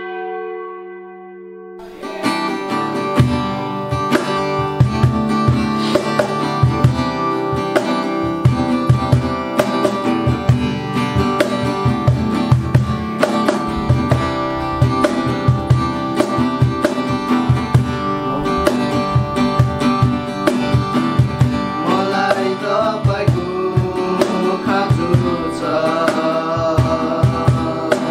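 A bell-like tone fades away, then music starts: strummed acoustic guitar over a steady beat, with a voice singing from about two-thirds of the way in.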